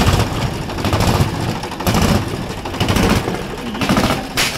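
Diesel tractor engine running, its exhaust blowing up a large latex balloon held over the silencer. Near the end, a single short sharp pop as the balloon bursts.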